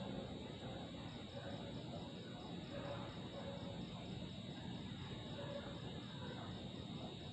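Night insect chorus of crickets trilling steadily, with a fast pulsing chirp above the trill.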